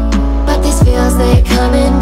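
Background music: a produced track with a deep, steady bass and a beat of low sliding bass hits about twice a second.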